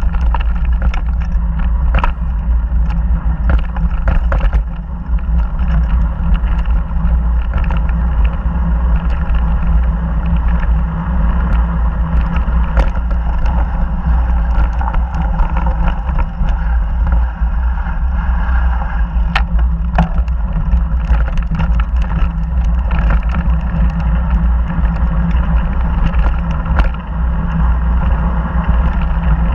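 Mountain bike rolling fast down a dirt singletrack: steady wind rumble on the microphone over tyre noise, with frequent clicks and rattles as the bike jolts over bumps and rocks.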